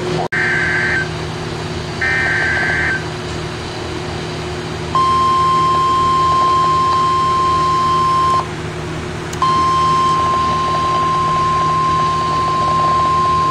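Emergency alert broadcast start: two short screeching bursts of the SAME data header, then the steady high-pitched weather radio alarm tone, sounding twice with a one-second break. A constant low hum and static from the receiver run underneath.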